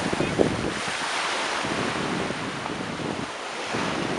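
Small sea waves washing onto a sandy shore, with gusts of wind rumbling on the microphone.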